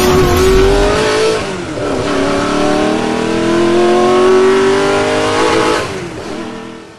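Car engine sound effect accelerating hard: the pitch climbs, falls back about a second and a half in like a gear change, climbs again through the next gear, then fades out near the end.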